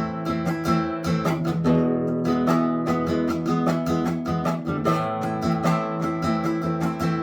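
Background music: a strummed acoustic guitar playing a quick, steady rhythm, changing chords a couple of times.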